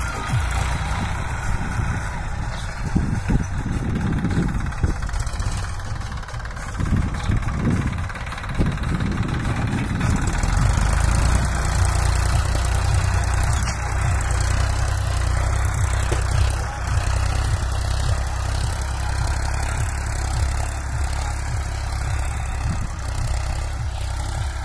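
Massey Ferguson 241 DI tractor's three-cylinder diesel engine running steadily under load as it pulls a disc plough through the soil. The low engine note turns steadier and stronger about ten seconds in.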